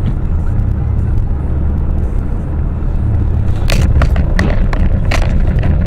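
Steady low road and engine rumble inside a moving car. From about two-thirds of the way in, a run of sharp bangs and knocks, roughly one every 0.7 seconds.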